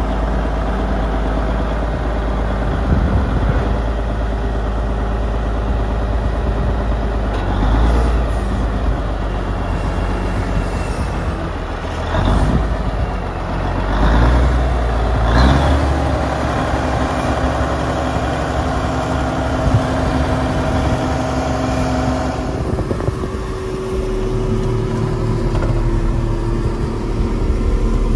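Case International 9180 articulated tractor's 375 hp diesel engine running steadily, with a few brief knocks in the middle and a slight change in its tone two-thirds of the way through.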